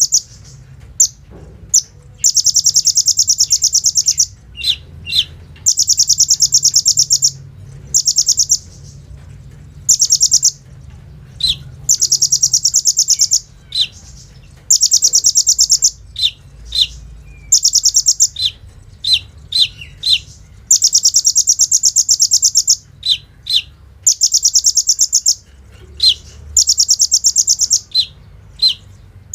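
Kolibri ninja sunbird singing: a run of rapid, high-pitched buzzing trills of a second or two each, repeated again and again and broken by short sharp chirps. The song is packed with mimicked phrases.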